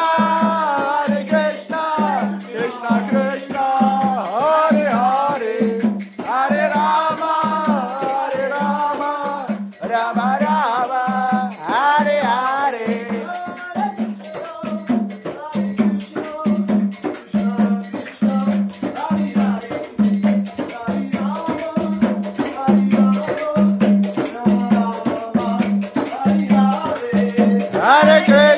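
Kirtan: a group chanting sung phrases over a steady beat on a mridanga drum, with karatals (small hand cymbals) clashing continuously. The singing swells and fades in phrases while the drum and cymbals keep going.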